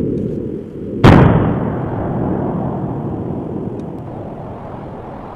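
Volcanic fissure eruption breaking open: a low rumble, then a sudden loud boom about a second in, followed by a rushing noise that slowly fades.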